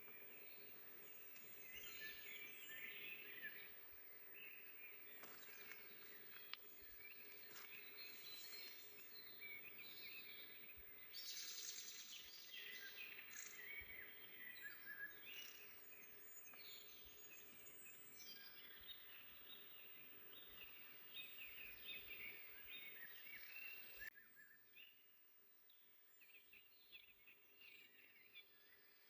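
Faint birdsong in a forest: several small birds chirping and trilling over each other, with a steady faint hum underneath. The background drops quieter near the end, and the birds thin out.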